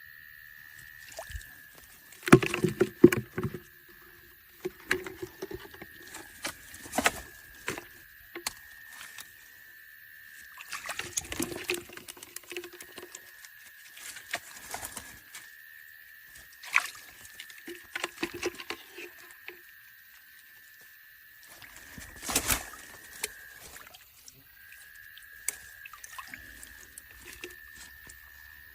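Water splashing and sloshing in irregular bursts, with sharp clicks, over a steady high-pitched tone that drops out briefly near the end.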